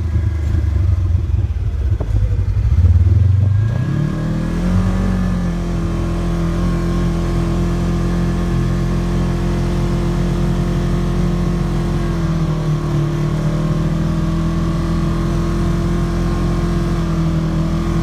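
Polaris RZR side-by-side's engine heard from inside its cab, running low for the first few seconds, then picking up revs about three to four seconds in and holding a steady pull through deep snow. The pitch dips briefly and recovers about two-thirds of the way through.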